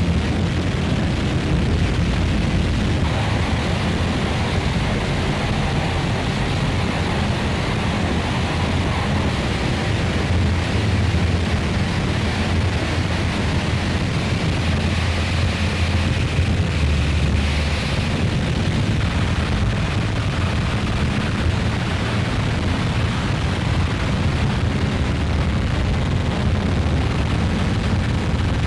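Live electronic drone music: a heavy, steady low rumble under a wash of hiss, with a brighter noisy swell in the upper range a little past the middle.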